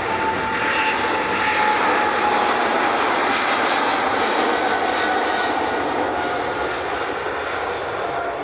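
Jet airliner passing close by: a loud, even rush of engine noise with a whine that slowly falls in pitch, loudest about two seconds in and then easing off.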